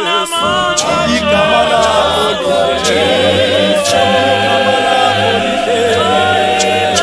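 Mixed choir of men's and women's voices singing a Zulu gospel song a cappella, many voices in harmony with vibrato over a steady bass line.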